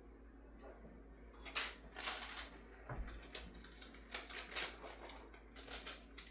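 Rolled-up old carpet being handled and tied: a quick run of short, irregular rustling and scraping sounds starting about a second and a half in.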